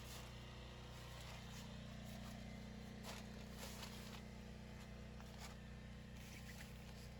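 A faint, steady low hum, with a few soft brief rustles about halfway through.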